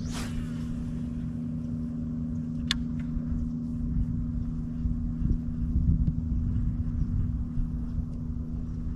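A boat motor running steadily: a low hum with two steady tones over a rumble. There is a brief swish at the start and a sharp click about three seconds in.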